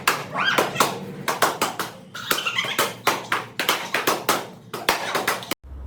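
Quick, irregular series of sharp smacks, several a second, from rapid martial-arts strikes and kicks landing, cutting off abruptly near the end.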